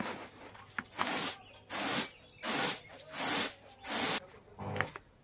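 Grain swishing and rattling in a round bamboo winnowing tray as it is tossed, five times in a steady rhythm, a toss about every three quarters of a second.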